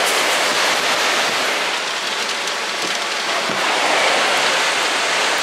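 Severe thunderstorm winds driving heavy rain: a loud, steady hiss with no let-up.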